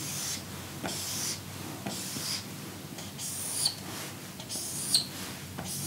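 Marker pen drawing straight lines on a whiteboard: a series of separate scratchy strokes about a second apart, several ending in a short squeak.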